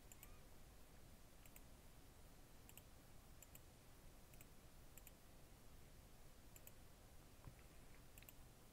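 Faint computer mouse clicks, mostly in quick pairs like double-clicks, about eight times over low hiss.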